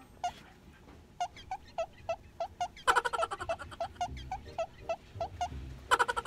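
Playful background music: short squeaky notes repeated about three times a second, with fuller chords breaking in about three seconds in and again near the end.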